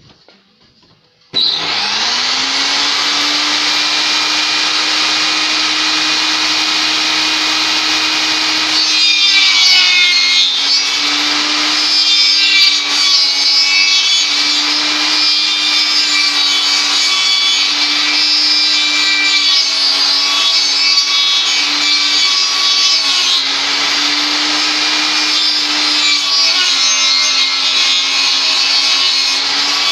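Table circular saw switched on about a second and a half in, its pitch rising as the blade spins up, then running steadily. From about nine seconds the blade cuts into the end of a log turned against it to shape a round tenon, the motor's tone dipping slightly under each bite.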